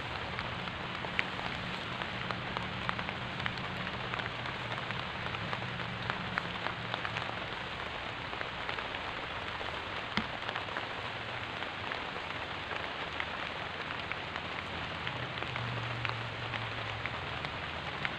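Heavy rain falling steadily on leaves and grass: an even hiss with many scattered ticks of single drops.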